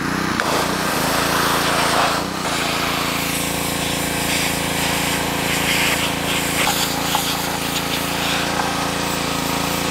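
Pressure washer running, its jet spraying onto a bare metal part and the concrete around it: a steady motor-pump hum under a loud even hiss, with a brief dip about two seconds in.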